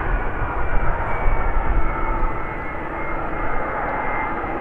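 Boeing 767's twin jet engines running at low power as the airliner taxis: a steady rush with several high, steady whining tones over it.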